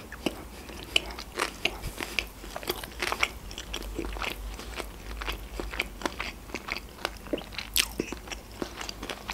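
Close-miked chewing of a mouthful of sushi roll: a run of small, irregular mouth clicks and crunches.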